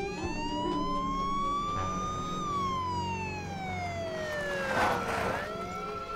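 Police car siren wailing: one slow rise in pitch, a slow fall, then beginning to rise again near the end. A short burst of noise comes about five seconds in.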